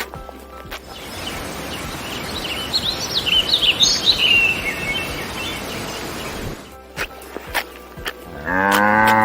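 A cow mooing once near the end, a single call of about a second. Before it comes a steady outdoor hiss with small birds chirping briefly a few seconds in, and scattered clicks.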